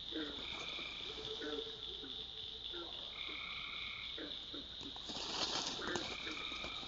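Night-time wetland chorus of frogs and toads: a steady high-pitched drone, short trills every second or two, and scattered short low croaks.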